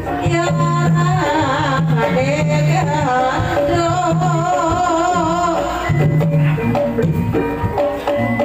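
Javanese gamelan music for a Lengger dance, with hand drums and pitched percussion. A singer's wavering melody runs over it and stops about five and a half seconds in, leaving the instruments playing on.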